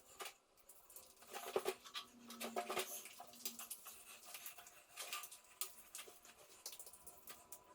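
Trowel scraping over wet plaster on a wall in short, irregular strokes, with light taps.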